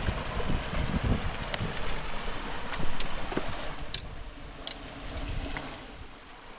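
River water rushing over stones in a steady hiss, with wind buffeting the microphone in low gusts during the first half and a few sharp clicks. The rush eases and grows quieter over the last couple of seconds.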